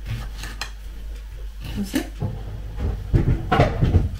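Kitchen clatter: a knife clicking against a ceramic plate as cucumber is sliced on it, with scattered knocks of dishes.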